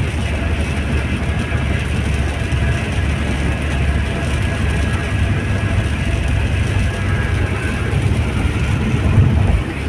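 Steady road noise inside a moving car's cabin at highway speed: a low rumble of tyres on a wet road and the engine.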